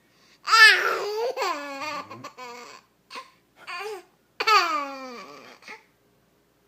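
A baby laughing: two long, high squeals that fall in pitch, starting about half a second and four and a half seconds in, with short breaths between.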